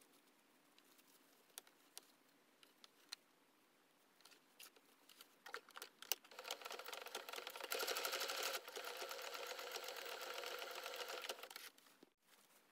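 Domestic electric sewing machine stitching steadily for about five seconds, starting about six seconds in and stopping shortly before the end. Before it starts there are only light clicks and handling of the fabric as it is positioned under the foot.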